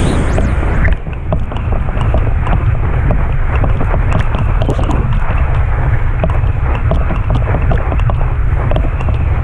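Heavy wind buffeting a camera microphone moving fast over the water, with the hiss of the boat's wake and spray and scattered small clicks. Some high sweeping sounds fade out in the first second.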